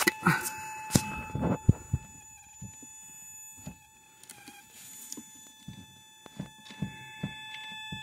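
Clicks and knocks of a 1974 VW Beetle's accelerator pedal and its fittings being worked by hand, testing the travel of a newly fitted throttle cable. The knocks are loudest and most frequent in the first two seconds, then thin out to scattered light clicks over a faint steady high whine.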